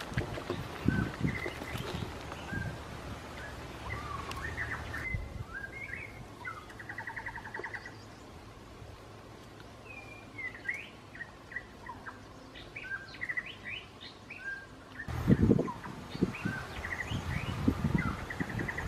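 Small birds chirping and trilling, with one rapid trill. Dull thuds and scrapes of digging in dry soil with hands and a bamboo pole come in the first couple of seconds and again, louder, over the last few seconds.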